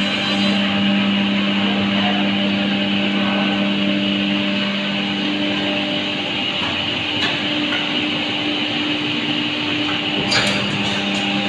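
Edge banding machine running, a steady motor hum with mechanical noise and a few light clicks about ten seconds in.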